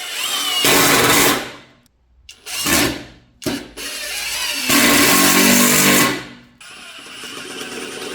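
Cordless impact drivers hammering in several loud bursts, the longest about a second and a half, followed by a quieter steady run that slowly builds toward the end.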